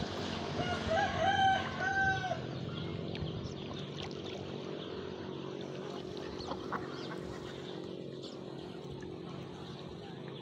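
A rooster crowing once, a drawn-out call of a few linked notes in the first two seconds or so, over a steady low background hum.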